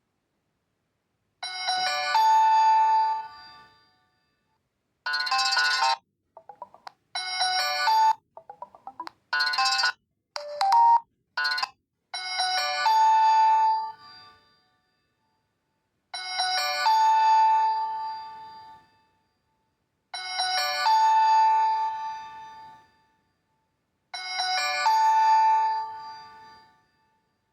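Reeder P13 Blue smartphone playing its preset ringtone and notification tones: a bell-like chime, then a run of several short, different tones, then the same chime four times, about four seconds apart.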